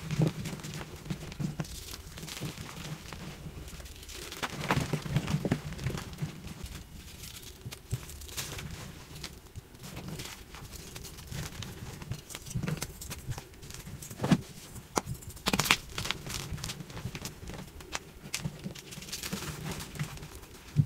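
Dried pasted gym chalk blocks being crushed and crumbled: irregular crunching and crackling, with a couple of sharper snaps about two-thirds of the way through.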